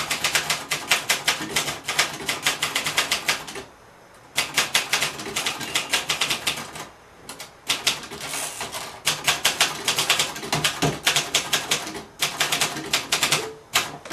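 1965 Singer Scholastic Model T4 manual portable typewriter, a rebranded Royal Lark, being typed on: quick runs of key strikes, several a second, with short pauses about four and seven seconds in.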